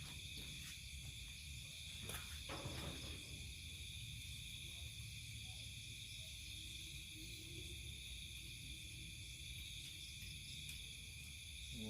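Steady chorus of insects, a constant high trill in several bands, with a few soft knocks and rustles in the first three seconds.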